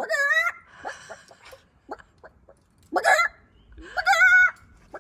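A person doing an animal-sound impression: three loud, wavering bird-like calls, one at the start, one about three seconds in and a longer one just after four seconds, with small mouth clicks between them.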